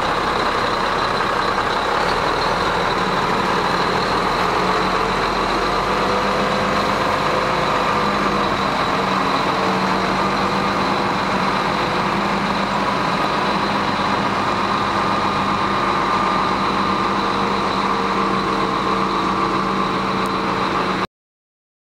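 Volvo A35D articulated dump truck's diesel engine running steadily as the truck drives slowly away, its pitch wavering slightly, with a faint high whine over it. The sound cuts off suddenly near the end.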